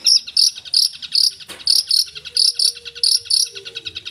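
Long-tailed shrike (cendet) singing: a fast buzzy trill, like an insect's, with loud high notes repeating about two to three times a second, part of its mimicry-filled song. A faint steady low whistle comes in about halfway through.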